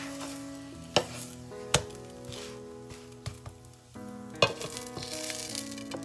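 Scallion pancake sizzling as it fries in oil in a nonstick pan, with sharp spatula clicks about one and nearly two seconds in and a loud knock about four and a half seconds in as the glass lid goes back on. Soft background music underneath.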